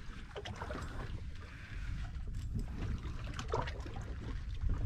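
Wind buffeting the microphone in a low, uneven rumble aboard a small open fishing boat, with faint scattered knocks and clicks from the boat and tackle.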